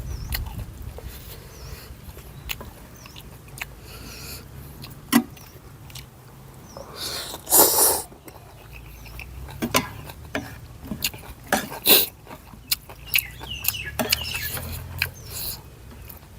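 Someone eating noodle soup close to the microphone: chewing and smacking, with short sharp clicks scattered throughout and a louder rushing sound lasting about a second, seven seconds in.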